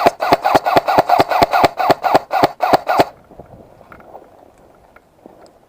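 Airsoft gun firing a sustained automatic string at about five shots a second, which stops about three seconds in.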